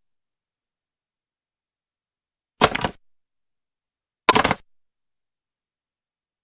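Vintage 1950 rotary telephone giving two sharp mechanical clicks, each with a brief rattle, about a second and a half apart, after a silent start.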